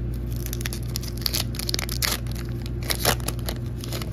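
A Pokémon booster pack's foil wrapper torn open and crinkled by hand, a run of sharp crackling rips, the loudest about two and three seconds in.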